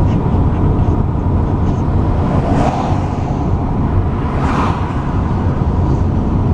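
Steady road and engine noise of a car being driven, heard from inside the cabin, with two brief swells of hiss partway through.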